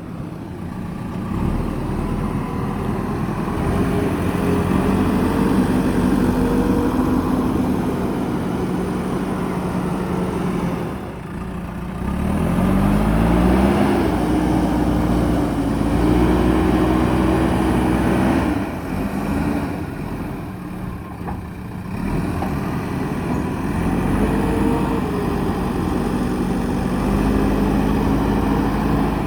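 Diesel engine of a JCB backhoe loader running hard under working load, its pitch rising and falling as the throttle is worked. It dips briefly about eleven seconds in, then revs up sharply, and eases off again past the twenty-second mark.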